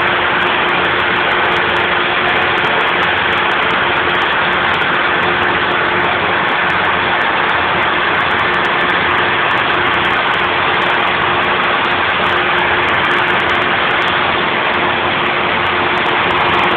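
Loud, steady hiss and rumble of a train standing at a platform, with a faint steady hum underneath and no change throughout.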